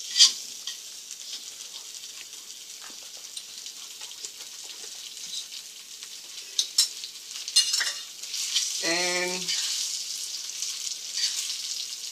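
Fried rice sizzling in a frying pan as it is stirred and scraped, with a steady hiss and scattered clicks of the utensil against the pan.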